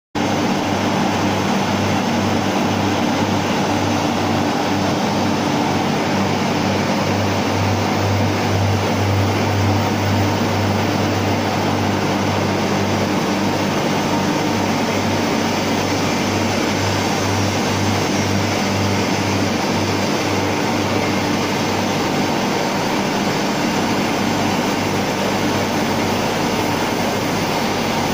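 BHEL-built steam turbine and its turbine-hall machinery running: a steady, loud rushing noise over a low hum that wavers slightly in strength.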